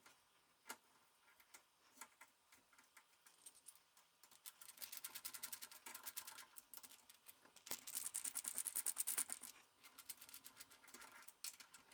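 Faint clicks, then two runs of rapid clicking, most likely from fastening a new door-lever latch into the door edge with a screwdriver.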